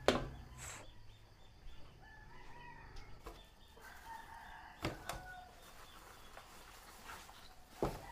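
A rooster crowing faintly, with a few sharp knocks: one at the start, one about five seconds in and one near the end.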